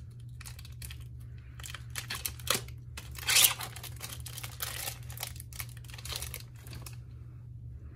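Sterile instrument packaging crinkling and tearing as gloved hands peel it open, in irregular bursts that are loudest about three and a half seconds in and stop shortly before the end, over a steady low hum.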